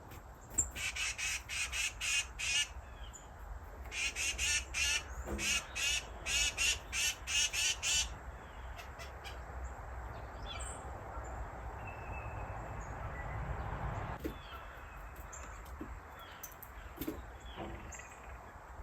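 Small birds giving loud, harsh calls in quick series, several a second, in two bursts during the first half. Then comes a rising rush of noise that cuts off suddenly about fourteen seconds in.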